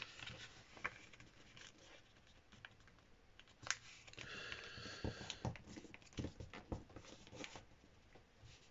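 A sheet of paper being flipped over and folded flat against a wooden tabletop: faint rustling and crinkling with scattered light taps as creases are pressed, one sharper tap a little before the middle.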